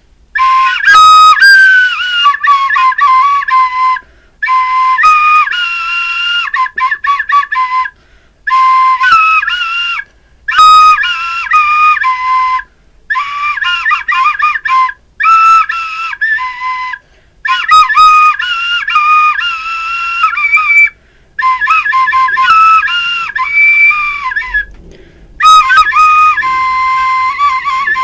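A Chinese flute playing a slow solo melody, unaccompanied, in short phrases separated by brief breaths.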